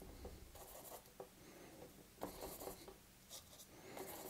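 Flat brush mixing gouache paint on a palette: faint rubbing of the bristles through the paint in several short strokes.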